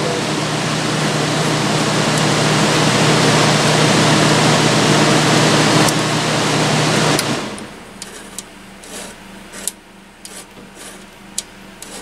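Vintage Westinghouse 5,000 BTU window air conditioner running with a steady hum and airflow noise, then shutting off abruptly about seven seconds in. Faint clicks and rubbing from the thermostat knob being turned follow.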